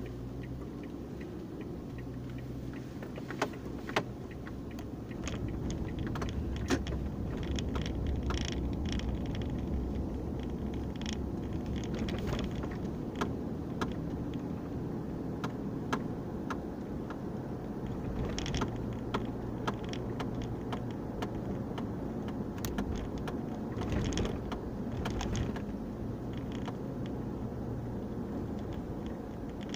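Steady low rumble of a car's engine and tyres heard from inside the cabin while driving, with scattered small clicks and rattles throughout.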